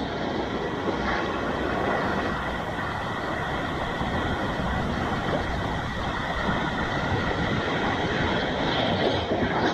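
Sea waves breaking and washing over rocks on a rocky shore: a continuous rushing surf, swelling slightly near the end.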